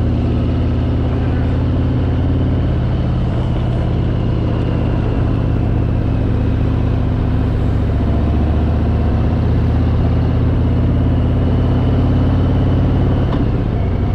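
Harley-Davidson Fat Boy's V-twin engine running steadily while riding, its pitch shifting slightly about three seconds in and again near the end.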